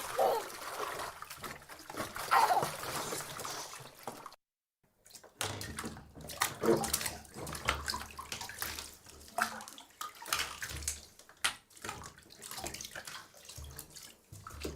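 Bath water splashing and sloshing as a baby plays in the tub: irregular slaps and splashes, broken by a moment of dead silence about four and a half seconds in.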